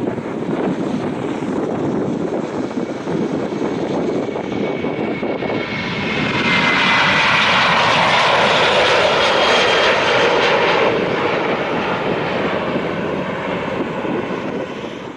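Jet airliner engine noise: a steady rumble that swells about six seconds in, with a high whine sliding down in pitch as the plane passes. It then eases off and cuts off abruptly.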